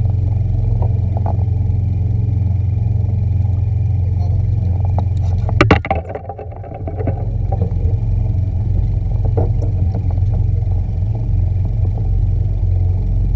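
Steady low rumbling noise, with a quick cluster of knocks about six seconds in, after which the rumble briefly drops and comes back.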